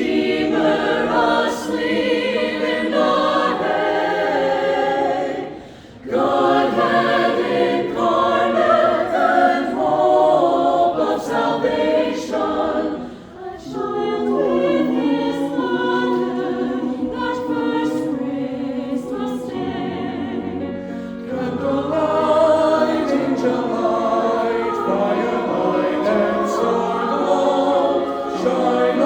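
A choir singing a Christmas carol, with short breaks between phrases about six and thirteen seconds in.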